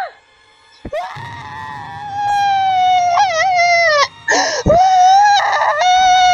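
A cartoon flower character's high-pitched voice screaming. After a sharp click about a second in, one long held scream wobbles partway through and breaks off around four seconds in for a couple of ragged gasping breaths. A second long scream then begins.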